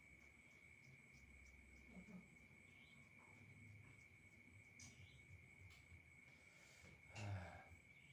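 Faint, steady high-pitched trilling of crickets at night. A brief soft rustle comes about seven seconds in.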